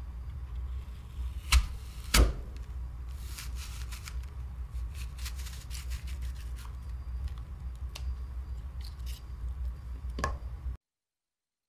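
Apple corer pushed into a whole raw apple and twisted, crunching through the flesh, with two sharp cracks about a second and a half and two seconds in and crackly scraping after. A knock comes near the end, and then the sound cuts out abruptly. A steady low hum runs underneath.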